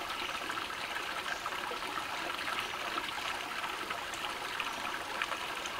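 Stream water running steadily, an even rush of flowing water.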